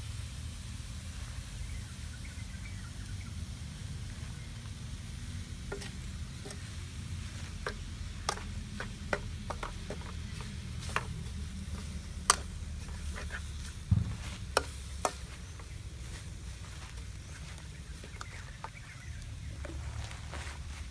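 Chopped eel frying in a steel wok, stirred with a metal ladle: a series of sharp clinks and scrapes of metal on metal from about six to fifteen seconds in, over a steady low rumble.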